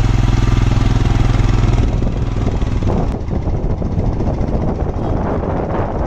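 A motor vehicle's engine running close to the microphone: a steady low hum for about two seconds, then a rougher, noisier sound.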